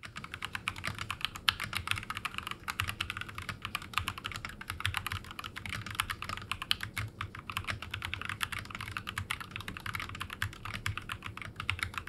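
Fast, continuous typing on a Rexus Daxa M64 mechanical keyboard: a dense stream of key clicks, many keystrokes a second.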